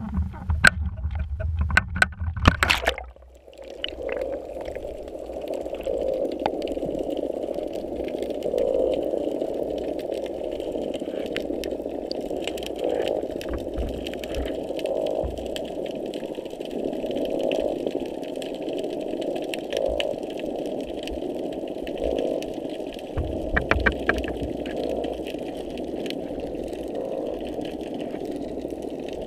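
Hydrophone recording of underwater noise: knocks and water noise at the surface for about three seconds, then, once submerged, a steady hum with a pulse repeating about every two seconds. These are the repetitive noises that are always heard just below the surface near the pier, here unusually intense.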